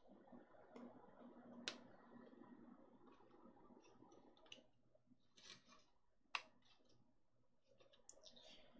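Faint clicks and rustles of small plastic model parts being handled and pressed together, with two sharper single clicks a few seconds apart.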